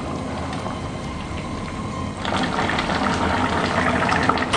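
Curry sauce bubbling at a simmer in a pan, a steady bubbling and popping that becomes louder and busier about two seconds in.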